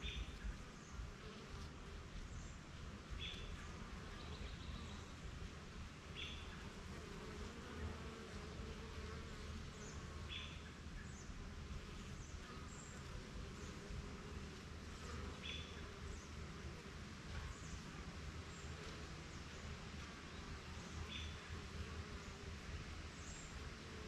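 Honeybees buzzing as they fly around a hive entrance, a soft, wavering hum that swells and fades as single bees pass. Short high bird chirps come every few seconds.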